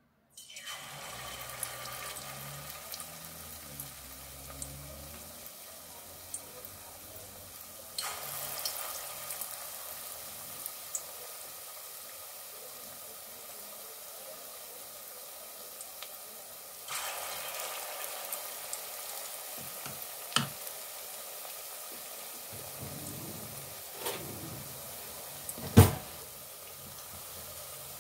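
Zucchini and carrot fritter batter sizzling in hot oil in a stainless steel pot: a steady frying hiss that starts as the batter goes in and swells again about eight and seventeen seconds in as more batter is added. A few clicks and one sharp knock near the end stand out above it.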